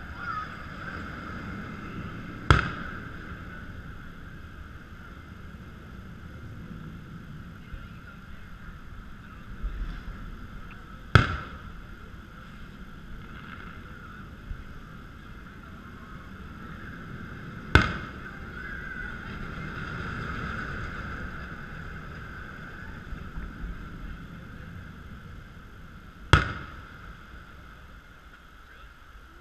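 Four sharp firework bangs several seconds apart, each with a short echoing tail, over a steady background hum.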